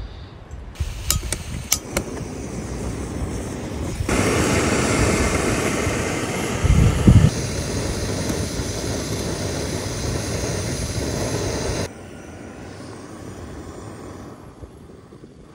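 Jetboil camp stove being lit: four or five sharp igniter clicks, then the gas burner catches and runs with a loud, steady hiss for about eight seconds before it stops suddenly. There is a low thump partway through.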